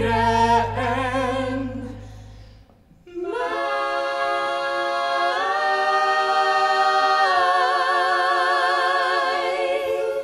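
A vocal quartet of two women and two men singing in close harmony over a low bass note; after about two and a half seconds the bass stops, and following a short breath the voices sing one long unaccompanied chord that steps up once, swells into vibrato and cuts off together at the end.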